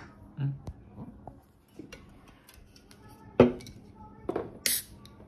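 Aluminium beer can and glassware knocking and clinking on a wooden table, with one sharp knock about three and a half seconds in and a short hiss about a second later.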